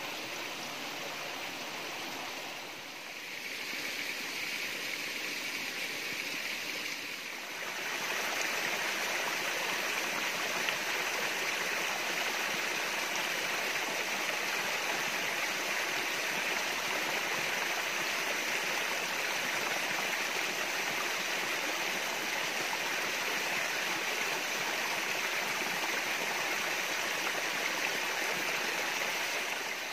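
Water splashing steadily from several bamboo spouts into a small pool, a continuous rushing noise that grows louder about eight seconds in.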